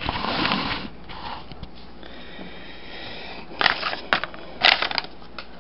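Handling noise from a camera being repositioned on its stand: a brief rubbing rustle at the start, then a few sharp clicks and knocks in the second half.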